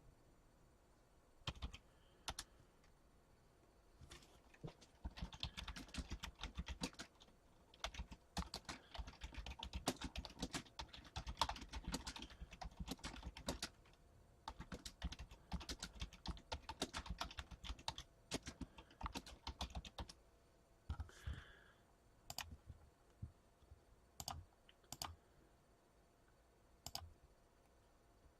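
Typing on a computer keyboard in quick runs of keystrokes, then a few scattered single clicks near the end.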